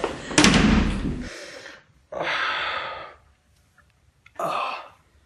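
A heavy bang of a door slamming shut about half a second in, followed by two loud gasping breaths with pauses between them.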